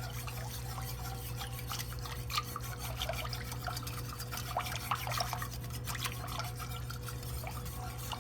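Cream of mushroom soup, water and wine heating in a Dutch oven, giving off many small irregular pops and crackles as the sauce cooks, over a steady low hum.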